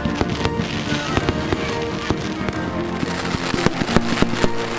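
Aerial fireworks going off in a string of sharp bangs and crackles, coming thicker towards the end, over steady music.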